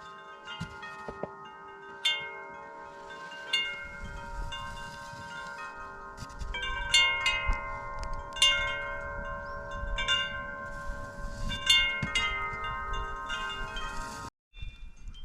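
Wind chimes ringing, struck again and again so that their tones overlap. The strikes come more often from about halfway through, with a low rumble of wind underneath, and the sound cuts off suddenly near the end.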